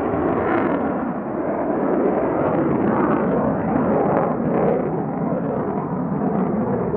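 Twin General Electric F404 turbofan engines of an F/A-18C Hornet, a steady, rough jet roar as the fighter flies overhead.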